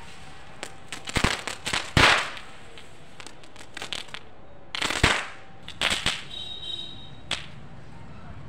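Firecracker going off: a fizz of sparks broken by a string of sharp bangs, the loudest about two seconds and five seconds in, with a brief high whistle about six and a half seconds in.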